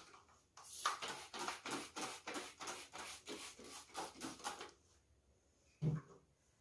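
Fast, even rubbing strokes, about five a second, for roughly four seconds, then a single dull thump near the end.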